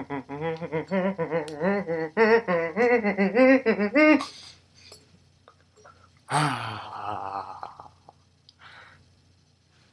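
A young man's voice making a rapid warbling, wordless vocal noise with several wavering syllables a second for about four seconds. After a short pause comes one loud cry about six seconds in that falls in pitch and trails off.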